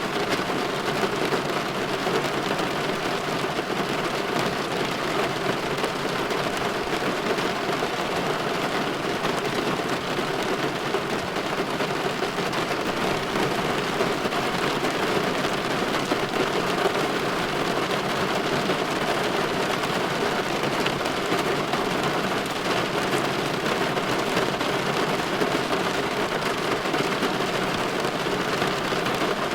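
Steady light rain falling on a window: an even hiss with no breaks.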